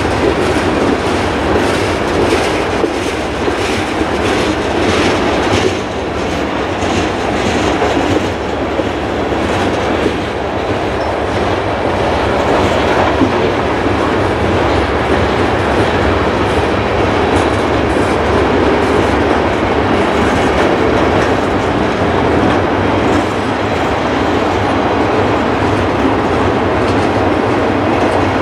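Freight cars of a long mixed freight train rolling past: a steady rumble of steel wheels on the rails, with a clicking rhythm as the wheels cross rail joints.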